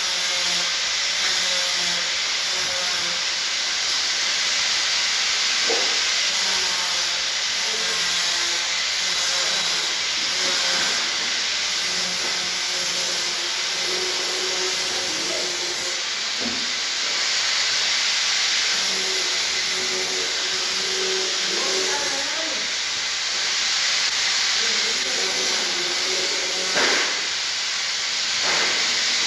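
Stick (shielded metal arc) welding arc on steel plate, giving a steady hissing crackle as the electrode burns, with one short louder crack near the end.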